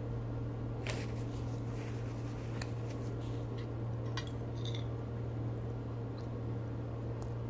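Eating sounds: chewing, and a few short clicks of a fork and spoon against a plate as spaghetti is twirled, over a steady low hum.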